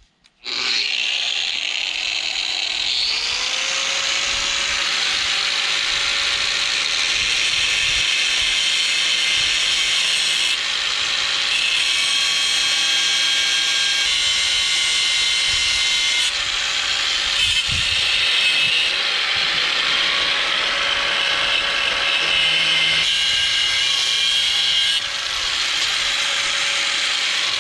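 Electric angle grinder running and grinding a steel railroad spike, a loud steady grinding with the motor's steady whine; it starts about half a second in.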